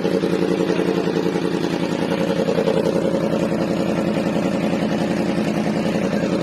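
Yamaha MT-10's crossplane inline-four running steadily at idle through an aftermarket SC Project exhaust, with an even, rapid pulse and no revving.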